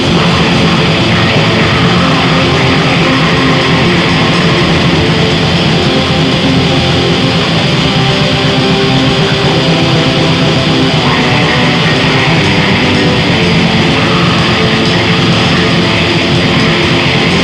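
Raw black metal with distorted electric guitar, playing loud and dense without a break.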